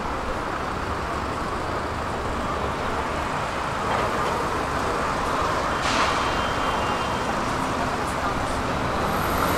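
Road traffic on a city street: a steady hum of passing cars, with a brief hiss about six seconds in.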